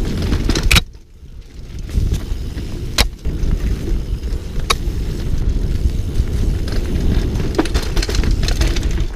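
Downhill mountain bike running fast down a dirt forest trail, heard from a helmet camera: wind buffeting the microphone over tyre and frame rattle, with sharp knocks from bumps about one, three and five seconds in. The noise drops off suddenly about a second in and builds back over the next second.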